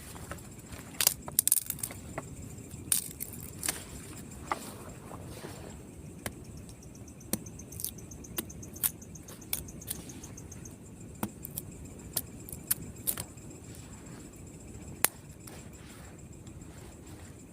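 A run of sharp, irregular clicks and snaps, thickest in the first few seconds and sparser later, like small objects or sticks being handled. Under them runs a steady high-pitched insect drone.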